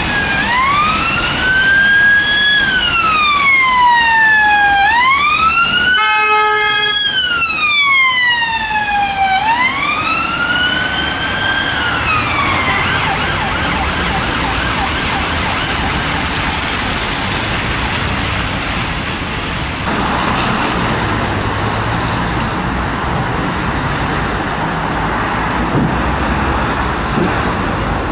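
A UK emergency vehicle's siren in slow wail, sweeping up and down every few seconds, broken about six seconds in by a brief steady tone. After about twelve seconds the siren stops and only road traffic noise is left.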